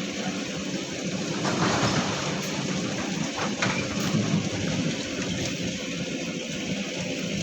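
Heavy diesel machinery running with a steady low hum under a loud rain-like rushing noise that swells about one and a half seconds in and again briefly a little later.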